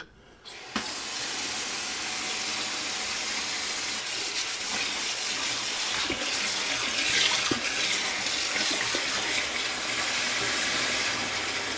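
Franke Olympus kitchen mixer tap turned on: a short click about three-quarters of a second in, then water running steadily from the spout into the stainless steel sink. The tap is being run to test its base for leaks after new O-rings were fitted.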